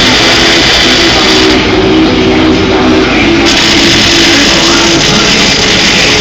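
Loud rock music with distorted electric guitar.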